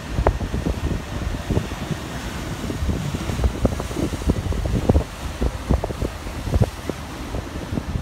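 Wind buffeting the microphone: an irregular low rumble broken by many short, sharp gusts.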